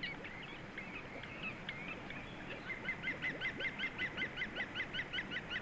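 Green woodpecker calling: a few scattered notes, then from about two and a half seconds in a fast, even run of short, ringing notes, about four or five a second.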